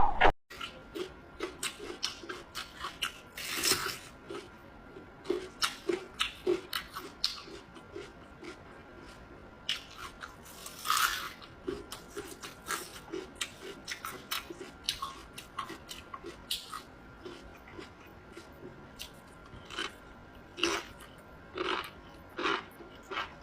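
A person chewing and crunching food close to the microphone: a long run of short, irregular crunches and mouth sounds.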